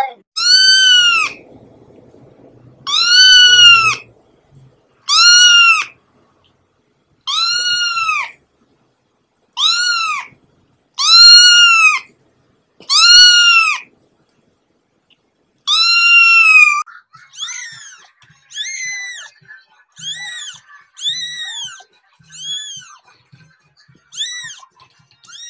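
Kittens meowing. Eight loud, drawn-out meows rise and fall in pitch, about two seconds apart. From about two-thirds of the way in, a second kitten gives shorter, fainter mews about once a second.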